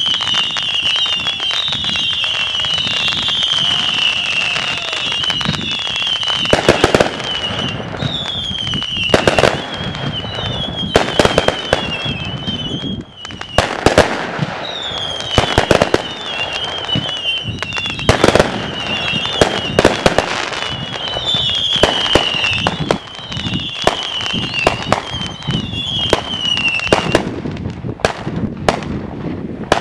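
Aerial fireworks going off in a rapid run of sharp bangs and crackles. A high, wavering whistle runs through most of it, breaking off twice and stopping near the end.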